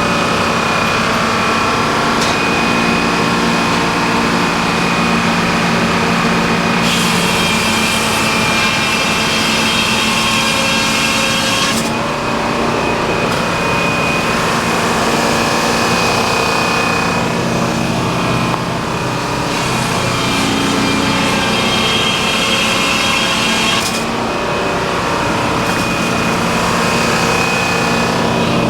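Sawmill running steadily as its blade cuts through a pine log, with two stretches of brighter, higher sound while the blade is deep in the wood, about a quarter of the way in and again past two-thirds.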